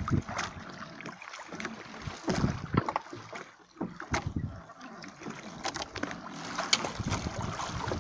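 Small boat on the open sea: water lapping and slapping against the hull, with wind on the microphone. Over this come scattered sharp knocks and handling noise as a fisherman hauls in a handline hand over hand.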